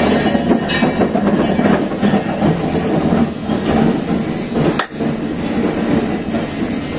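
Rapid, continuous percussive massage: fast rhythmic strikes on the body that run together into a dense clatter, with a brief break about five seconds in.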